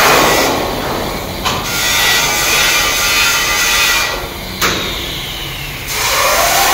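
Flux-cored arc welding: the arc's steady crackling hiss, which drops away twice, about half a second in and again about four seconds in, before picking up again.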